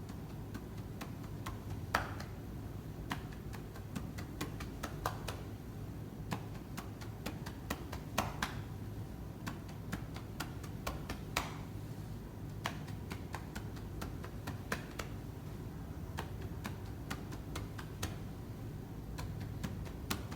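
Chest percussion (clapping) with cupped hands on a patient during chest physiotherapy, meant to loosen phlegm: light, sharp pats at an uneven pace, about two a second. A steady low hum runs underneath.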